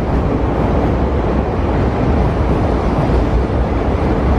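JR East E5 series Shinkansen train running past, a loud steady rush and rumble.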